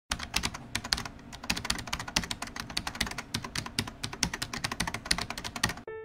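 Rapid typing on a computer keyboard: a dense, irregular run of key clicks that stops abruptly just before the end, where a held piano note begins.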